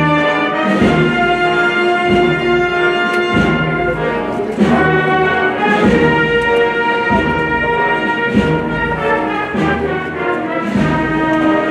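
Spanish processional wind band (banda de música) playing a slow Holy Week march: sustained brass chords over a steady, slow drum beat.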